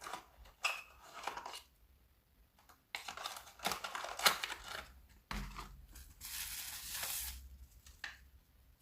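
Cordless mop accessories and their packaging being handled: light knocks and clicks of plastic parts, then a couple of seconds of rustling plastic wrapping about halfway through.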